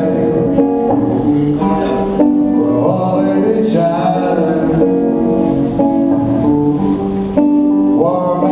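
Guitar-accompanied music with a singing voice: street musicians performing.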